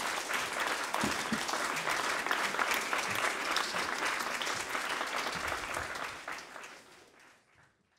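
A small audience applauding, many hands clapping at once; the applause thins out and fades away about a second before the end.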